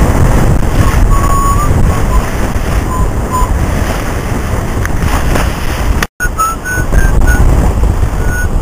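Wind buffeting the microphone and water rushing past the hull of a Moody 42 sailing yacht making way under full sail in about 15 knots of wind. Brief high whistles come and go, and the sound cuts out for an instant about six seconds in.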